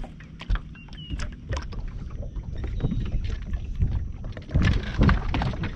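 Wind buffeting the microphone, a low rumble that grows stronger past the middle, with scattered light knocks and clicks from handling gear on the boat's deck.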